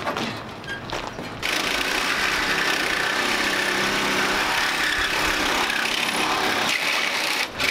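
Handheld cordless power tool running steadily at full speed, likely cutting into the truck's rusted sheet metal, starting about a second and a half in and stopping suddenly near the end.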